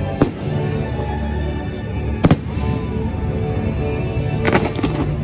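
Aerial firework shells bursting with sharp bangs about every two seconds, three in all, the last a quick cluster, over the fireworks show's music soundtrack with long held notes.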